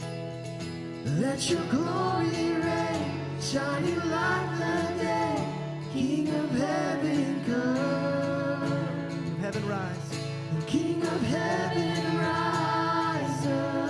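Live worship band playing a song, with guitar and singing voices.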